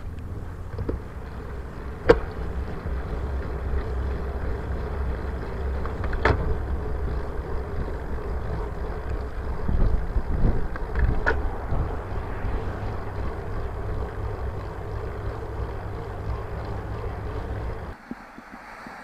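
Wind buffeting and road rumble on a bicycle-mounted camera's microphone while riding, with three sharp clicks spread through. The low rumble drops away suddenly near the end.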